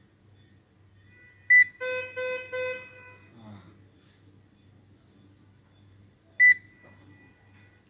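Electronic beeps from an echocardiography ultrasound machine as its imaging mode is switched: a short sharp high beep about a second and a half in, then three short lower beeps in quick succession, and another short sharp high beep near the end.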